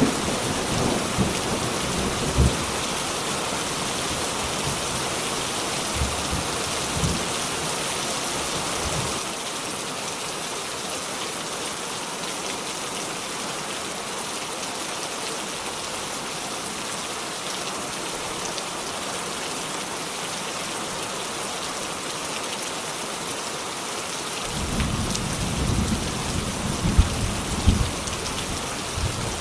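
Thunderstorm: steady rain, with thunder rumbling low in the first few seconds and rolling in again near the end.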